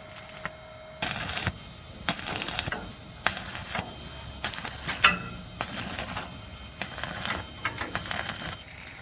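Electric arc welder laying short tack welds on an iron gate: about seven crackling, sizzling bursts, each around half a second, roughly one a second.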